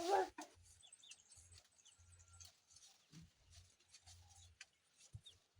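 A short animal call right at the start, then faint bird chirps and small scattered clicks.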